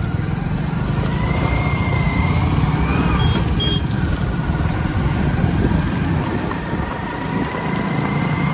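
Motorcycle running at riding speed, heard from the rider's seat as a steady low rumble mixed with wind on the microphone. A thin high whine wavers in and out, and two short high beeps sound a little after three seconds in.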